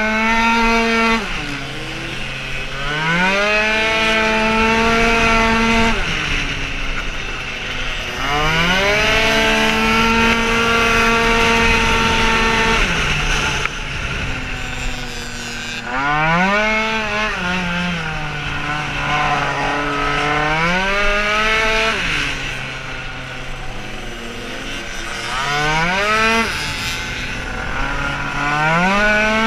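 Tuned two-stroke racing scooter engine at full throttle on track: it climbs quickly to a high, steady pitch, holds it for a few seconds, then falls away when the throttle is shut, about five times over, with wind rushing past the rider.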